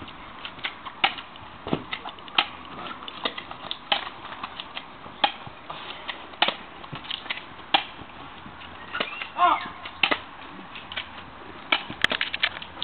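BB guns firing in a back-and-forth fight: a scattered run of sharp clicks and pops, often several a second. A short wavering cry sounds about nine seconds in.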